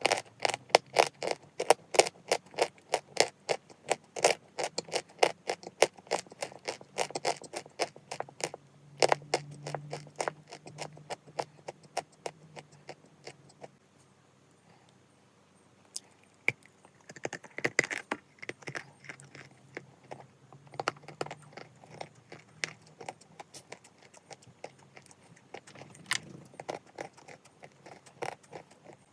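Chalk being bitten and chewed close to the microphone: a run of sharp, crisp crunches, several a second, with a pause of a few seconds around the middle before the crunching resumes.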